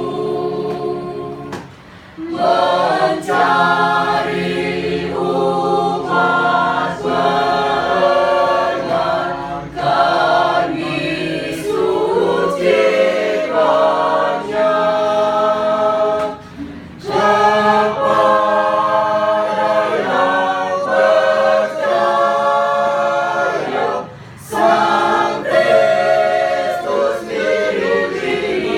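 Church choir singing together in parts, with short breaks between phrases about 2, 16 and 24 seconds in.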